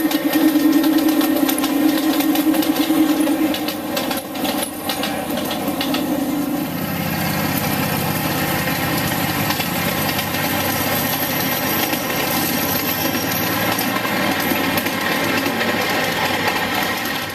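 Engines of ride-on 7½-inch gauge model locomotives running as loaded trains pass close by, with wheels clicking over the rails. A second, lower-pitched locomotive engine comes up about seven seconds in as it passes.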